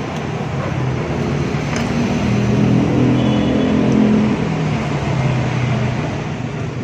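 A motor vehicle engine running, with a low hum that grows louder about two seconds in and eases off after about four and a half seconds, over a steady background rumble.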